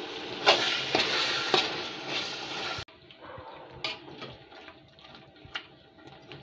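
Chicken and tomato purée sizzling and hissing loudly in a hot pot, with a few sharp ladle clinks. It cuts off abruptly partway through, and then comes quieter stirring, the metal ladle scraping and knocking against the pot now and then.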